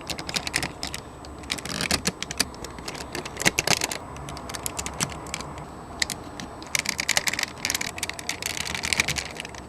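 Snap-together plastic model-kit parts clicking and rattling as they are handled and pressed into place, in quick irregular clicks.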